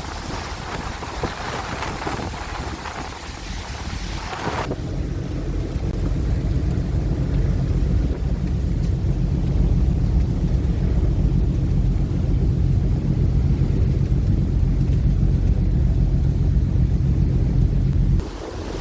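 Wind buffeting the microphone over rushing sea, then, about five seconds in, an abrupt change to the ferry's engines running with a steady low drone, which cuts off suddenly near the end.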